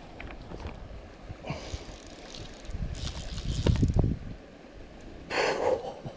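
Fly reel's ratchet clicking faintly as a hooked salmon pulls against the line. Wind buffets the microphone with a low rumble that swells about three to four seconds in.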